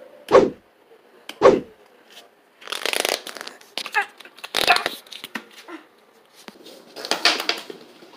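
Two heavy thumps about a second apart, then bursts of rustling and scraping as the recording phone is grabbed and moved about.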